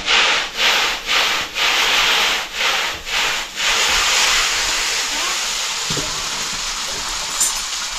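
Boiled noodles frying in hot oil in a wok, sizzling loudly. For the first three or four seconds the sizzle swells and dips about twice a second as they are stirred and tossed with a spatula, then it settles into a steady sizzle.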